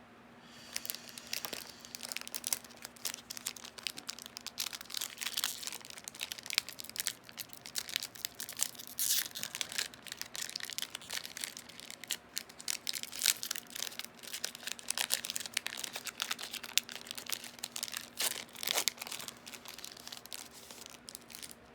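Foil booster-pack wrapper crinkling and tearing as a trading-card pack is opened and handled, a dense run of irregular crackles with no pauses.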